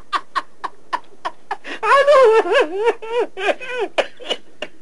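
A man laughing helplessly, a fit of laughter he cannot hold back. Quick short bursts of stifled laughter, then about two seconds in a loud, high, wavering laugh, falling back into short bursts near the end.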